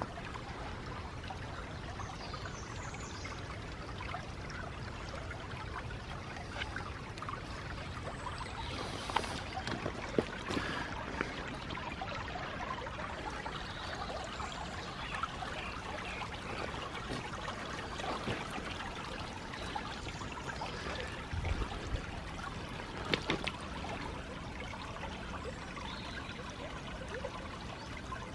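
Water trickling and running steadily in a small woodland stream, with a few short clicks and knocks scattered through it.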